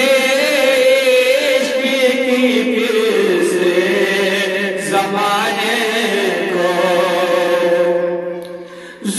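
A man singing an Urdu naat, a devotional song in praise of the Prophet, solo, in long drawn-out notes with wavering ornaments. His voice trails off near the end.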